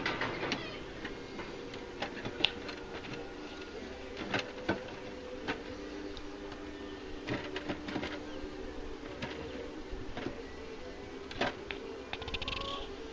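Honeybees buzzing steadily around an open hive, a hum of several tones, with scattered light knocks and clicks throughout.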